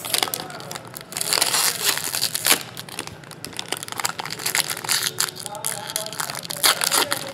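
Foil wrapper of a 2015 Bowman Draft baseball card pack crinkling and tearing as it is ripped open by hand, in a run of uneven crackly bursts, loudest between about one and two and a half seconds in.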